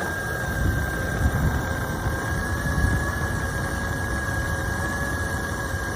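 Clothes dryer exhaust blowing out of the cleaned outside vent into an airflow meter: a steady rush of air with a low rumble and a constant high whine.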